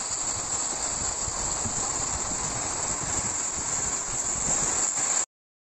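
Heavy tropical downpour with strong wind: a steady, even hiss of rain that cuts off suddenly about five seconds in.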